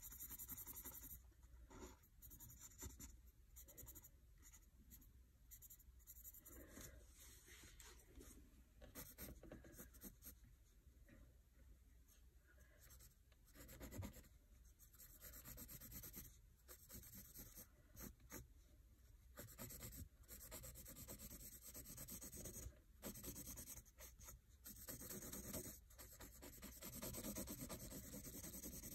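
Faint scratching of a pen or pencil tip drawing on lined notebook paper: short strokes with brief pauses between them, turning into steadier back-and-forth shading near the end.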